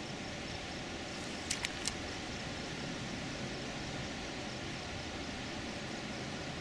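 Steady outdoor background hiss, with three quick sharp clicks close together about a second and a half in.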